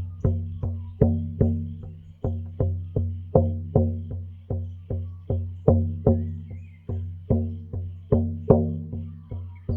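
Irish bodhrán frame drum beaten in a steady, even rhythm, about two and a half strikes a second, each beat leaving a low ringing boom.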